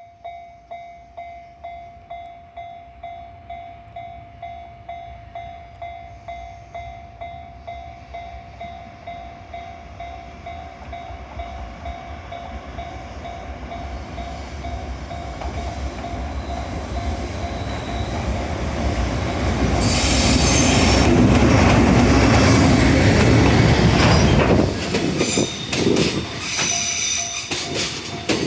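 A Japanese level-crossing alarm bell rings steadily, about three dings every two seconds, as a JR Freight EF210 electric locomotive hauling container wagons approaches and grows louder. From about twenty seconds in the train is passing close by, its wheels clattering over the rail joints.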